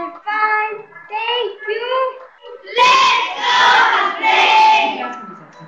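A group of children singing together, heard through a video call's audio: short notes at first, then louder, longer phrases from about three seconds in.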